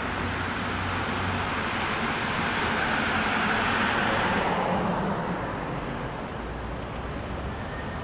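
A road vehicle passing close by, its tyre and engine noise swelling to a peak about three to four seconds in and then fading, against steady road traffic.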